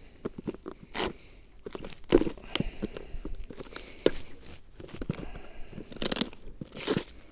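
Sealed packaging from a life raft's medicine kit being handled and torn open by hand: irregular crackles, crunches and small rips, with louder bursts about two seconds in and again near the end.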